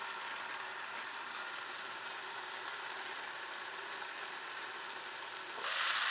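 Deer heart, peppers and onions frying in a skillet under a glass lid: a steady, muffled sizzle that turns louder and brighter near the end as the lid is lifted off.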